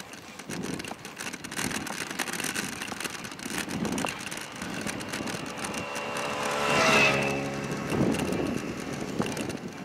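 Kick scooter rolling along an asphalt cycle path, wheels humming on the surface with wind on the microphone and a soft push about every one and a half seconds. About seven seconds in, a passing motor vehicle with a steady pitched hum rises to the loudest point and fades.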